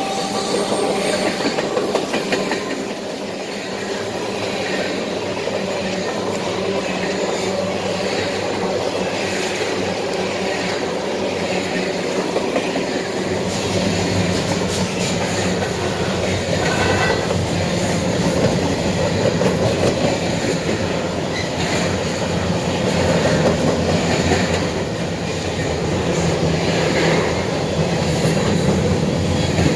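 Empty Canadian Pacific covered hopper grain cars rolling past close by: a steady rumble with wheels clicking over the rail joints, and a brief wheel squeal a little past halfway.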